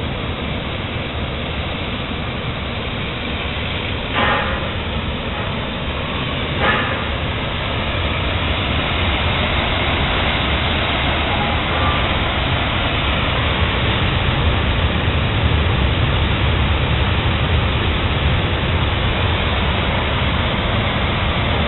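Several oxy-fuel torches on a Messer Griesheim Statosec P6500 CNC gantry cutting machine flame-cutting steel plate into strips: a steady rushing noise that grows louder about eight seconds in, with two brief knocks around four and seven seconds in.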